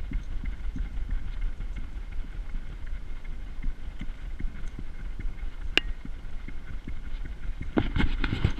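Steady low rumble and irregular soft knocks from a GoPro harness-mounted on a trotting beagle, the camera and harness jostling with the dog's steps. One sharp click about six seconds in, and a cluster of louder crackling knocks near the end.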